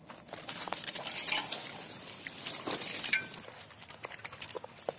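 Mountain bike pushed through dry grass and weeds: tyres and stems swishing and brushing, footsteps, and light metallic clicks and rattles from the bike, loudest in the first few seconds as it passes close by.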